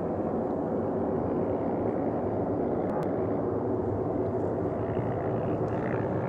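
Embraer 190 jet airliner's two turbofan engines running as the aircraft rolls along the runway, a steady jet noise that grows slightly louder.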